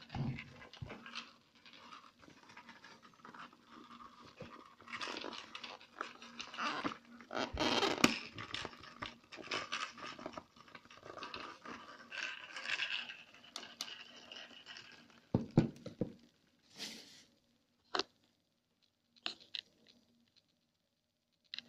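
Plastic rustling, scraping and light knocks as a KUOKEL full-face snorkel mask and its plastic wrapping are handled. The noise comes and goes irregularly, then gives way to a few short, separate clicks in the last third.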